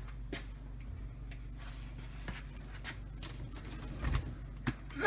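A cockatoo picking at onions in a pantry: faint scattered ticks and scratchy rustling, with a slightly louder knock about four seconds in, over a steady low hum.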